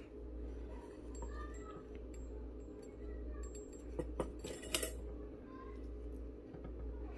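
Light metallic clicks and clinks as a lamp's metal harp and socket are handled and fitted onto the base, with a cluster of sharper clicks about four to five seconds in, over a steady low hum.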